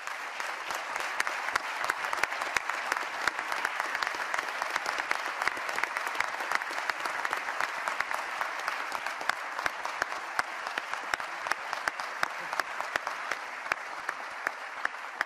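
Applause from a large roomful of people clapping steadily, with sharp single claps standing out from the dense patter; it eases off slightly near the end.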